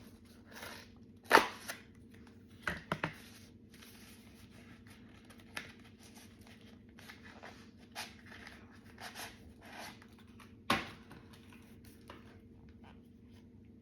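Paper takeaway food packaging being handled and unwrapped: scattered rustles and crinkles, the loudest about a second and a half in and again near eleven seconds, over a faint steady hum.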